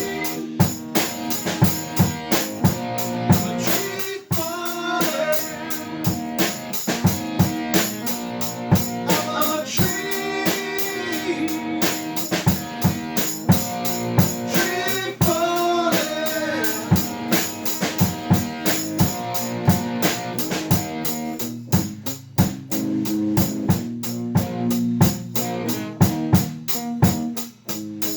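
Rock band playing an instrumental break: a drum kit keeps a steady beat under bass and guitar, with a lead line that bends in pitch several times.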